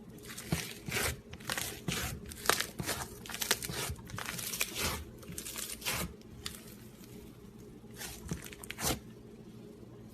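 Slime being squeezed and pressed by hand, giving a dense run of short crackling, crinkly sounds for about six seconds, then two more crackles near the end.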